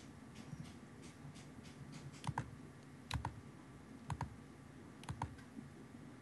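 Faint clicking at a computer: light ticks in the first second or two, then sharp clicks in close pairs, about one pair a second.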